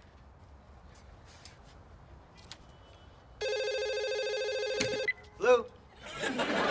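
Landline telephone ringing once, a steady electronic ring about a second and a half long that is cut off short when it is picked up. Studio audience laughter swells near the end.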